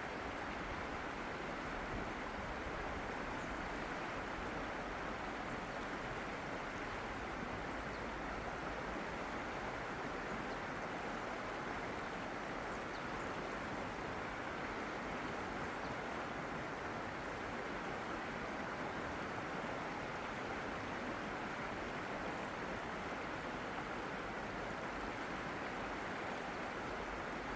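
Steady rush of running water with an even level, and a few faint high chirps here and there.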